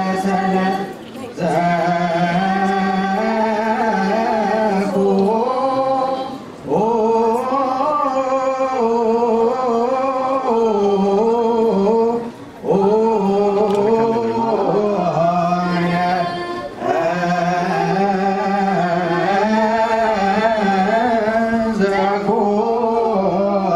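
Ethiopian Orthodox mezmur (spiritual song) sung by a small group of voices through microphones, in long melismatic phrases with short breaths between them every few seconds.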